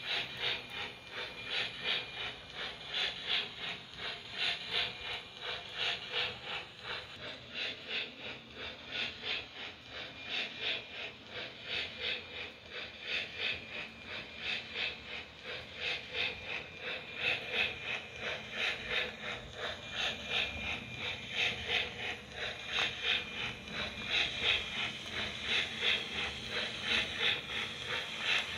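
HO scale model of a South Australian Railways F class tank locomotive running with its train: a steady mechanical whirr with a fast, even rhythmic beat.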